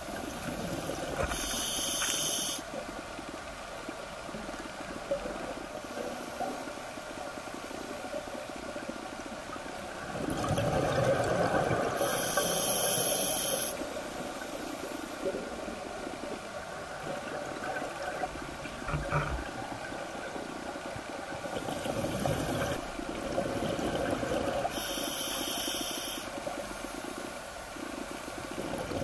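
Scuba regulator breathing underwater: hissing inhalations and bubbling exhalations, a few slow breaths, with a louder bubbly exhale about a third of the way in.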